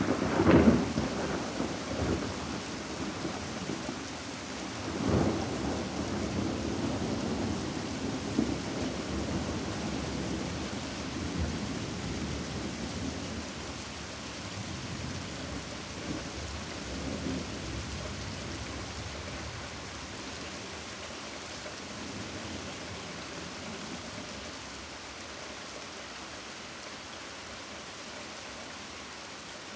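Steady rain with thunder: a loud clap just after the start, another rumble about five seconds in, then softer rolling rumbles that die away under the rain.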